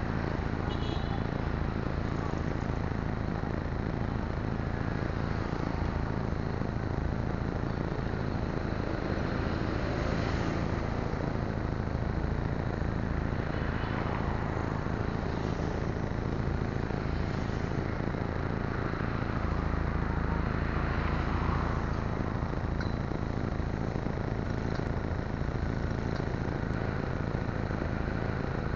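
Steady roadside traffic and engine noise with a low rumble, swelling as vehicles pass every few seconds, with a few faint clicks near the end.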